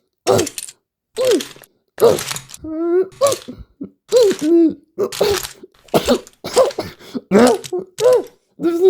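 A man's repeated cries of pain, the 'stepping on Lego' sound effect: short pitched yelps and groans that rise and fall, about one or two a second, with breathy gasps between.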